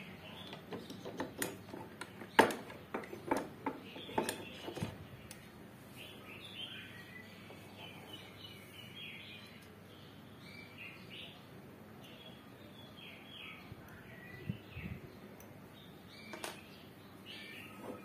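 Small bird chirping in short repeated notes throughout. In the first five seconds there is a run of clicks and knocks from the metal bearing bracket on the scissor jack being handled, the sharpest about two and a half seconds in.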